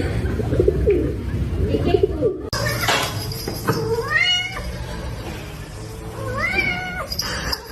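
A cat meowing twice: two drawn-out meows about two and a half seconds apart, each rising in pitch and then falling away. Before them, a low warbling call.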